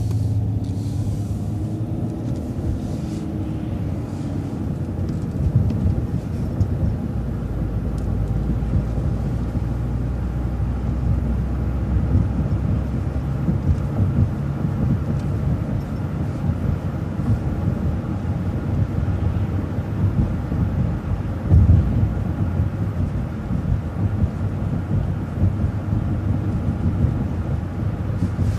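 MCO ViewMaster transit bus driving, heard from on board: a steady low engine and road rumble. In the first few seconds the engine pitch rises and then eases as the bus comes out of the left turn.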